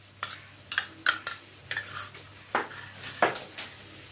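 A spoon clinking and tapping against a bowl, about eight irregular sharp clinks, while ginger-garlic paste is spooned onto chicken for the marinade.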